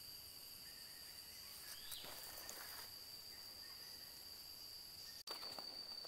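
Faint forest ambience: insects keep up one steady high-pitched drone, with a short rising chirp about two seconds in. Near the end, soft footsteps on the stony path begin.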